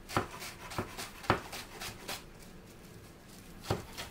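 Chef's knife chopping parsley on a wooden cutting board: a run of irregular knocks, pausing for about a second and a half past the middle, then starting again near the end.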